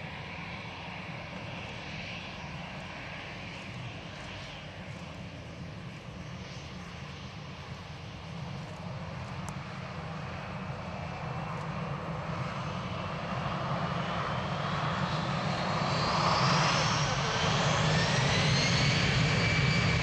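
Airbus A319's twin CFM56 turbofan engines, with a steady low jet rumble at first. From about two-thirds of the way in, a rising whine joins it and the sound grows much louder as the engines spool up. It levels off into a loud, steady tone near the end, typical of power being set for the takeoff roll.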